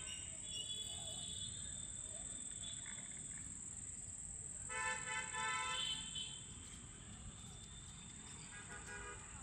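Steady high-pitched insect chirring, with a vehicle horn sounding for about a second midway and again briefly near the end.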